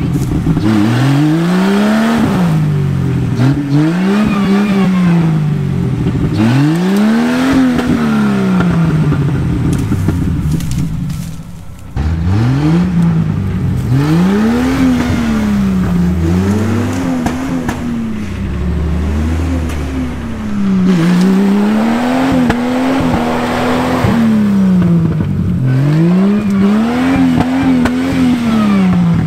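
Jeep Wrangler engine revving up and dropping back again and again, roughly every two seconds, as the Jeep drives through mud and tall grass. It eases off briefly about eleven seconds in, then picks up the same rhythm.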